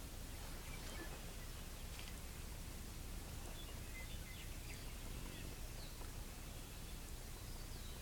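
Faint bird calls, a scatter of short high chirps and little whistled glides, over a steady low outdoor background rumble.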